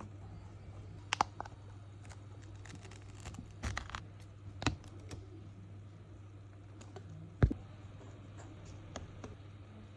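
A few scattered light clicks and taps, the loudest about seven seconds in, over a steady low electrical hum.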